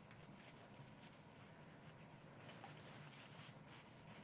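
Near silence, with faint rubbing and light ticks from a soft shop cloth wiping a painted napkin ring.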